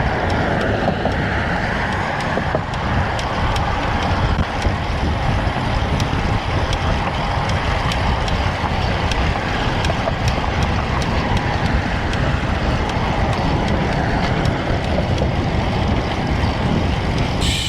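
Wind buffeting the microphone of a bike-mounted GoPro while riding a road bike, a steady low rumble of wind and road noise.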